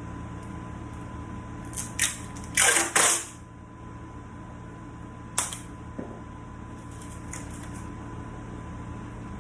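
Handling noises at a workbench: a few sharp clicks and a short loud rasp about two and a half seconds in, then single clicks at about five and a half and six seconds, over the steady hum of a fan or air conditioner.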